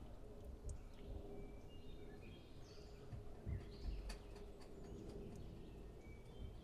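Faint background ambience: a steady low hum with a few soft knocks and occasional faint bird chirps.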